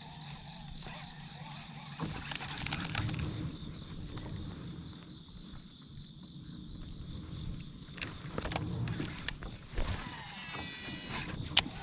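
Scattered knocks, clicks and rustles of fishing gear being handled on a kayak, over a faint, steady high-pitched hum.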